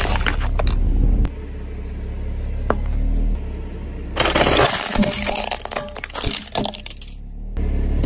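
A car tyre rolls onto a plastic toy stove and crushes it: a loud crunch about four seconds in, then scattered cracks and snaps of breaking plastic. A car engine rumbles low underneath, its level jumping at each edit.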